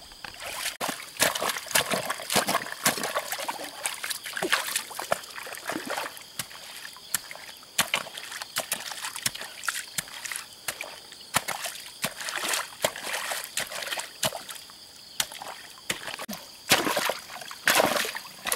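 Shallow muddy water splashing and sloshing in irregular strokes as hands and a wooden stick work in it, with the strongest splashes shortly before the end.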